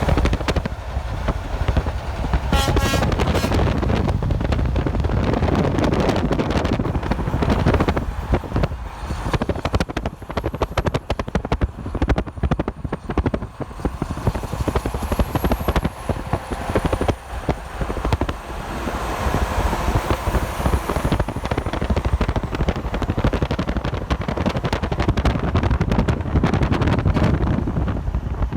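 Highway traffic with trucks and cars passing close by in several waves of rumbling tyre and engine noise, and wind buffeting the microphone. A short tonal sound comes about two and a half seconds in.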